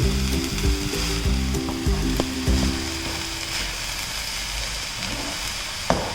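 Raw papaya thoran, a stir-fry of grated papaya and coconut, sizzling in the pan on a low flame as it is stirred, with a sharp knock of the spoon against the pan near the end. Background music plays over the first half.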